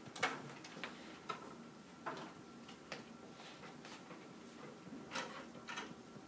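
Handwriting on an iPad's glass screen: irregular light taps and short scratchy strokes, spaced unevenly, the loudest just after the start and about five seconds in.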